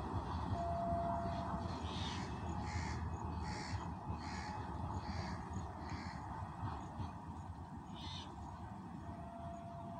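Crows cawing, a run of calls under a second apart and one more near the end, over the low rumble of a train moving away, which slowly fades.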